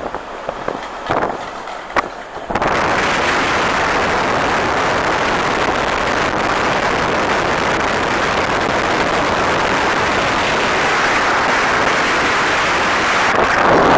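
A few knocks and clicks, then about two and a half seconds in a loud, steady rushing noise sets in: wind and travel noise inside a moving vehicle.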